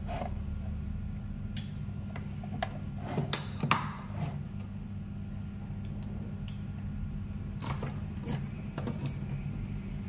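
A hand pressing and shifting on the plastic case of an e-scooter battery charger: scattered clicks and creaks, loudest about three and a half to four seconds in, over a steady low hum.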